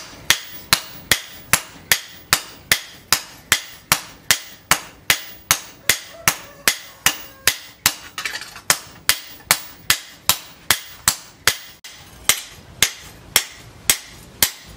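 A sledgehammer and a hand hammer strike a leaf-spring steel billhook blade on a steel post anvil, metal on metal. The blows come in a steady rhythm of about three a second, each with a short ring.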